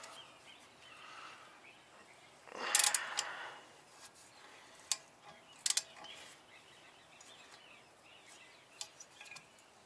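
A socket wrench working the screw of a claw-type hub puller: mostly quiet, with a short rasping burst of clicks about three seconds in and a few single sharp metal clicks after it.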